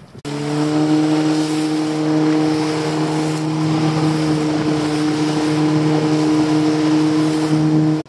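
Outboard motor of a small fishing boat running at a steady cruising speed under way, with an even, unchanging engine note over water and wind noise. It starts abruptly just after the beginning and cuts off abruptly just before the end.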